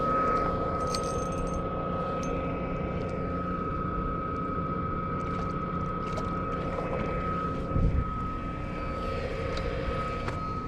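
Steady mechanical drone: a low rumble with a constant high whine, with a brief low thump about eight seconds in.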